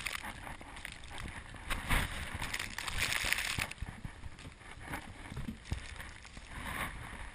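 Gusty wind buffeting the camera's microphone in a snowstorm: an uneven rumble and rustle that swells for a second or two about two seconds in.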